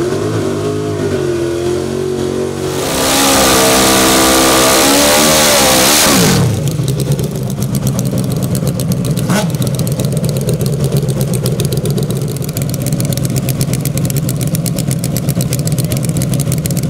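Nitrous Hayabusa-based drag motorcycle's inline-four engine blipped up and down, then held at high revs with a loud rushing roar for about three seconds, before dropping to a steady, fast-ticking idle that runs on to the end. One sharp click sounds a few seconds into the idle.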